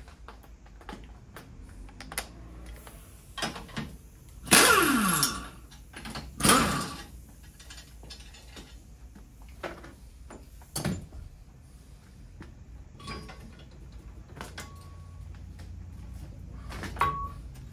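Metal clicks and clanks from a homemade coil spring compressor and strut parts being handled. Two loud metal scrapes with falling pitch come about four and a half and six and a half seconds in, and a knock near eleven seconds.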